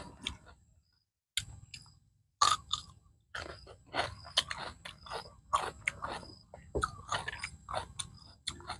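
A man chewing close to the microphone while eating raw shrimp with fresh cucumber: crisp crunches and wet chewing that come thick and fast after a short pause about a second and a half in.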